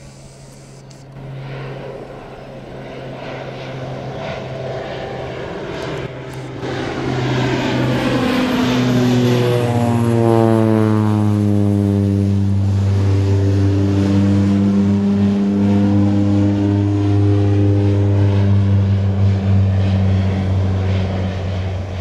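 Crop-duster airplane flying low overhead, its engine and propeller drone growing louder as it approaches. The pitch drops steeply as it passes overhead about ten seconds in, then it stays loud at a lower pitch and fades near the end.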